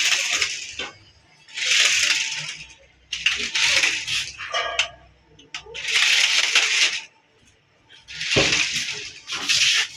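Toy remote-control stunt car driven in short spurts: its motor and wheels whir and rattle in about five bursts of a second or so each, with brief pauses between them.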